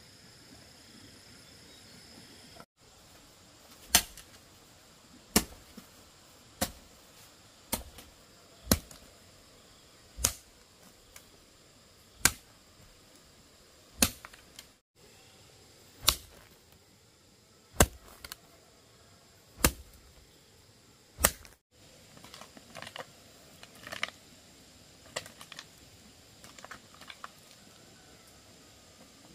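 A hoe blade chopping into hard earth: a dozen sharp, loud strikes about one every second and a half, then near the end lighter, quicker scraping and clicking as the hoe pulls loose soil.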